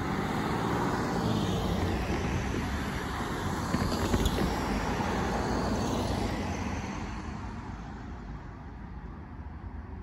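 Cars driving over the level crossing and past at close range, the nearest a Land Rover Defender: a steady rush of engine and tyre noise that fades away after about six seconds.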